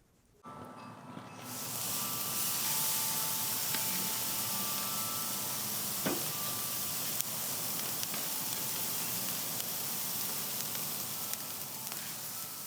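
Chicken thighs sizzling steadily on a hot grill grate over the direct-heat side, with a couple of sharp clicks partway through.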